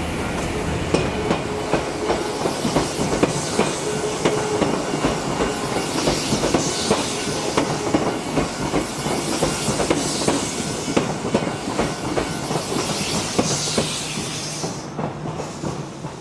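A train passing over a level crossing, its wheels clacking rapidly and unevenly over the rail joints and crossing with a steady rumble. The sound dies away over the last couple of seconds as the train moves off.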